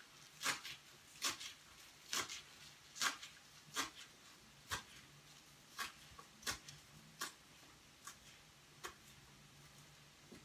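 Kitchen knife chopping green onions on a wooden cutting board: a sharp knock of the blade on the board about once a second, the strokes thinning out near the end.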